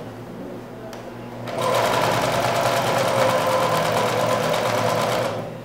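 Domestic electric sewing machine stitching a hem in cotton fabric. It is stopped for about the first second and a half, then runs steadily for about four seconds and stops just before the end.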